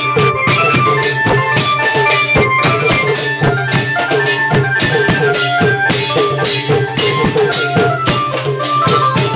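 Thai klong yao long-drum ensemble playing: the drums beat a dense, driving rhythm with rattling percussion, while a high melody line of short notes hops above it.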